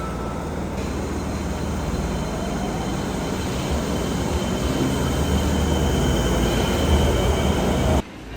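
Train running: a steady rumble with a faint high whine above it, which cuts off abruptly near the end.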